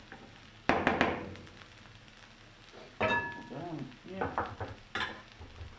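Chopped onions frying in a nonstick frying pan with a faint sizzle. About a second in there are a few sharp knocks of utensil on pan, and about three seconds in a short ringing clink of kitchenware.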